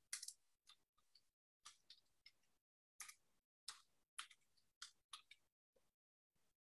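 Computer keyboard keys clicking as a name is typed: about a dozen short, irregular keystrokes with silence between them.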